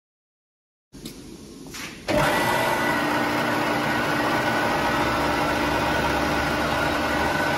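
Warner & Swasey No. 3 turret lathe started up about two seconds in: after faint room noise and a couple of small clicks, its motor and headstock gearing come on suddenly and run steadily, a mechanical whine with several steady tones.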